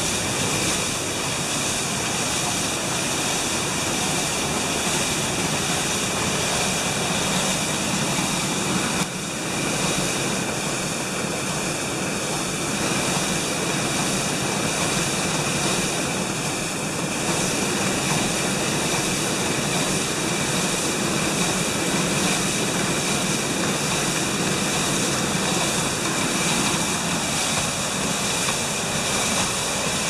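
Water rushing and splashing steadily as it pours down from the flume and wheel of a water-powered sawmill, with a short break in the sound about nine seconds in.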